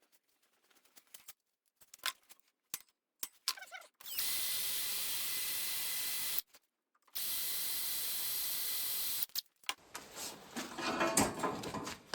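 Power drill running steadily twice, about two seconds each with a short pause between, boring holes through 18-gauge sheet steel. Small clicks of handling come before, and clattering of parts being moved near the end.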